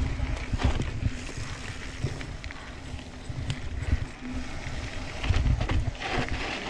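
Santa Cruz Tallboy mountain bike rolling fast down a dirt trail: tyre rumble with irregular knocks and rattles as the bike hits bumps and roots.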